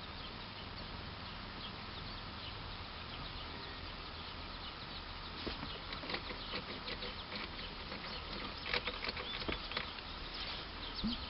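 Outdoor farmyard ambience: a steady background hiss with many short, high chirps or clicks, which become busier and louder from about halfway through.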